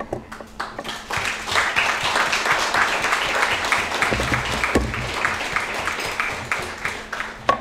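Audience applauding: many hands clapping in a steady, dense patter that builds up about a second in and goes on until just before the next speaker begins.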